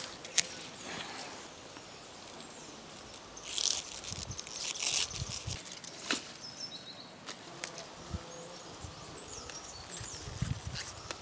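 Malabar spinach leaves and vines rustling as they are picked and handled by hand, with a burst of rustling a few seconds in and a few small clicks. Faint bird chirps over quiet garden ambience.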